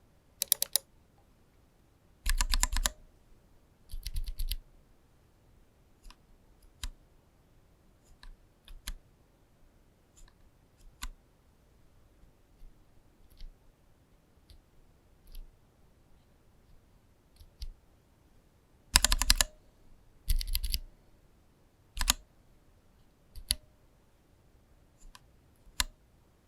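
AlphaKeys Dusk Panda tactile mechanical keyboard switches being pressed: scattered single keystrokes, broken by a few short bursts of rapid presses, the loudest near the start and about two-thirds of the way in.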